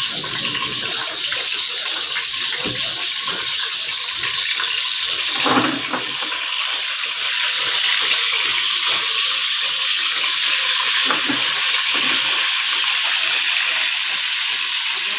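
Food sizzling in hot oil in a pan on a gas stove, a steady hiss, with a brief knock about five and a half seconds in.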